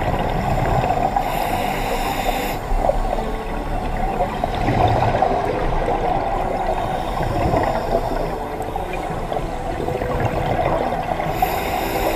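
Scuba breathing heard underwater: a steady bubbling rumble of exhaled air from divers' regulators, with a hissing regulator inhalation about a second in and again near the end.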